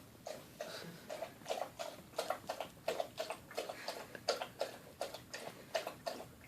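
Dog eating from its bowl, its mouth working in a steady rhythm of about three strokes a second.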